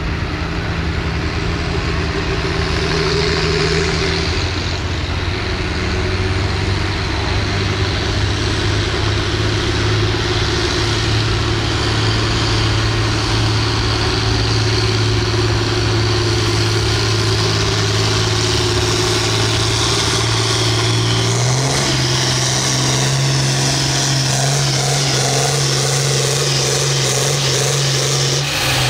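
John Deere farm tractor's diesel engine working hard under load as it pulls a weight-transfer sled down the track. The engine note holds steady, steps up in pitch about two-thirds of the way through, then drops away near the end as the pull stops.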